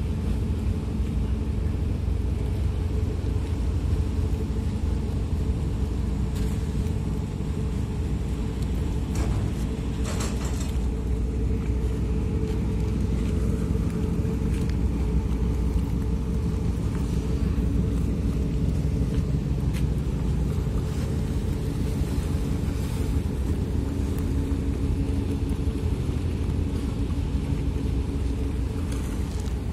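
Ferry engines rumbling steadily, a low drone with a constant hum over it.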